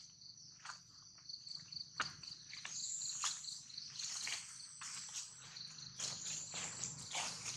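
A steady high-pitched chorus of insects trilling, with short crackles and rustles scattered through it.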